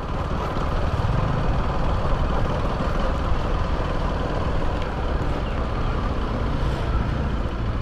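Steady motorcycle riding noise: the engine running, with wind and tyre rumble on a rough, broken-up concrete road.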